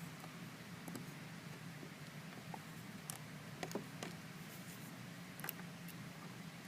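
A handful of faint, scattered clicks from a pick and tension wrench working inside a Master Lock 410 lockout-tagout padlock's keyway, over a low steady hum.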